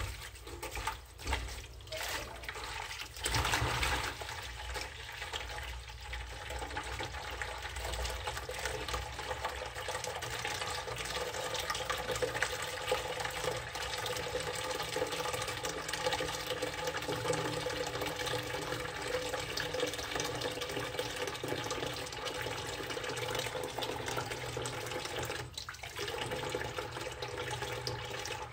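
Water from a tap pouring steadily into a plastic basin of water in a sink, with uneven splashing from hands in the water during the first few seconds.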